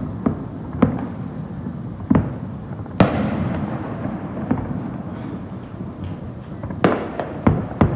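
Fireworks bursting: a string of sharp bangs, about eight in all, the loudest about three seconds in, trailing a long fading rumble with crackle, and a quick cluster of bangs near the end.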